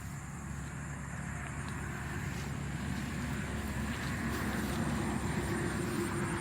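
A motor running steadily with a low hum, growing gradually louder, its pitch rising slightly later on.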